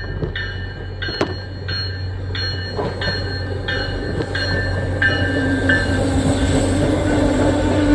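Railroad grade-crossing bell dinging about one and a half times a second, ending about six seconds in, over the low rumble of an approaching diesel commuter train that grows louder. A steady hum joins in as the train nears.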